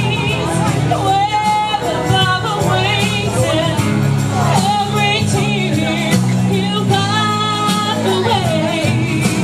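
A woman singing into a handheld microphone over instrumental accompaniment, holding long notes that waver in pitch.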